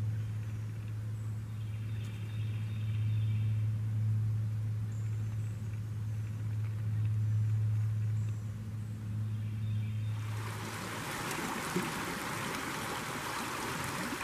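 A steady low hum for about the first ten seconds, then the rushing of a shallow forest stream takes over near the end.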